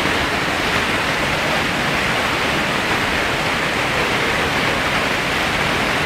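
Whitewater river rapids rushing over boulders, a loud, steady noise without a break.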